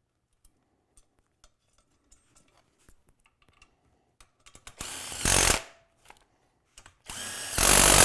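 Cordless drill/driver run twice, about a second each, driving a bolt into a snowmobile suspension rail; each run gets louder partway through. Light clicks of metal parts being handled come before it.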